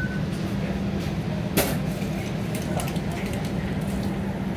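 Steady low hum and running noise inside a TTC streetcar, with one sharp clack about a second and a half in.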